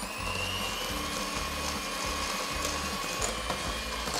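Electric hand mixer running at a steady speed, its beaters creaming softened butter and sugar in a glass bowl. The motor gives an even, high whine.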